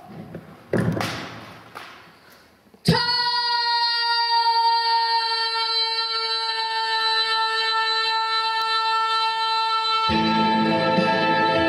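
A woman's amplified voice through a handheld microphone. After a few seconds of faint breathy noise, she sings one long, steady note, and lower notes join near the end.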